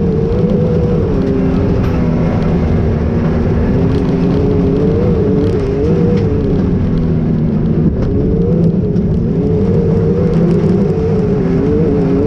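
Can-Am Maverick XRC 1000 side-by-side's V-twin engine running under way, its pitch rising and falling again and again as the throttle is worked.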